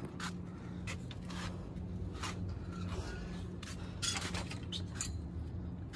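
Footsteps and light scuffs on a concrete path, a short tap every half second or so, over a steady low hum.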